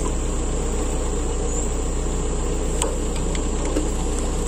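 Excavator diesel engine idling steadily, with a sharp metallic click a little before the three-second mark and a few lighter ticks after it as a wrench works on a hydraulic hose fitting.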